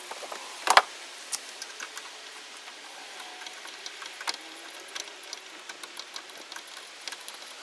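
Scattered small clicks and clinks of ceiling fan parts being handled and taken apart by hand, with one louder sharp knock under a second in.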